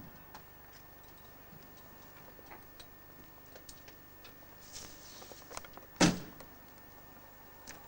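Faint rustling and a few light knocks, then one hard thump about six seconds in, the loudest sound here.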